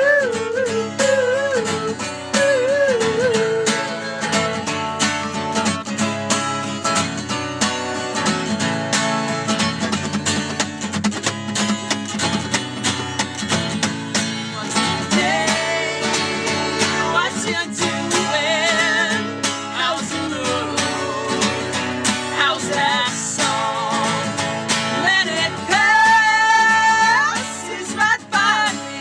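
A song on strummed acoustic guitars with a singing voice that wavers in pitch and holds a long high note near the end.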